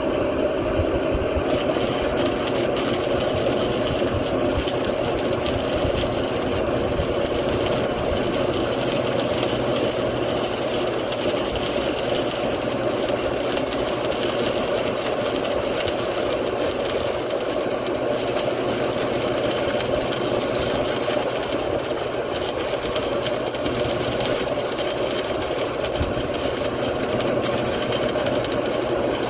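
Lincoln Idealarc 250 transformer welder humming steadily. About a second and a half in it is put under heavy load, its input current jumping from about 6 A to about 47 A, and a steady crackling hiss joins the hum.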